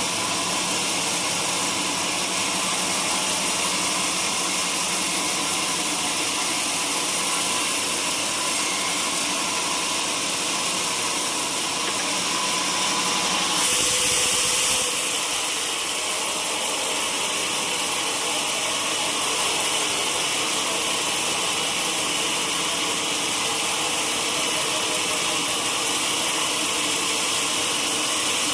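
Sawmill saw running: a steady, hissing mechanical noise, with a brief change in tone about halfway through.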